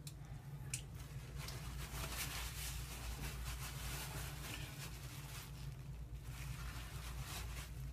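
Faint soft rustling and squishing of fingers squeezing a cyst into a tissue, over a low steady hum.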